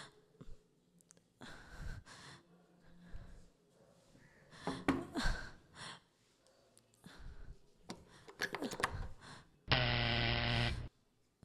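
Scattered soft knocks, rustles and footsteps, then near the end a steady buzzing tone lasting about a second, cutting off sharply, as a wooden door's handle is turned to open it.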